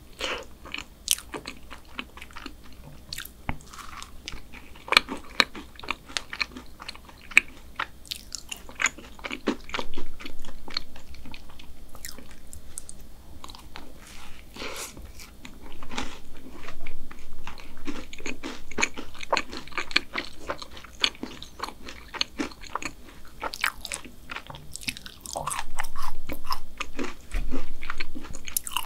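Close-miked biting and chewing of chocolate chip brownie topped with black sesame ice cream: a steady stream of irregular mouth clicks and chewing sounds, louder in a few stretches.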